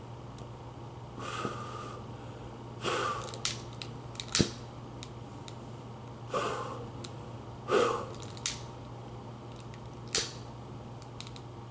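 Sharp clicks from a long-neck utility lighter's trigger and igniter, several times, between four short breathy puffs close to the microphone, over a steady low hum.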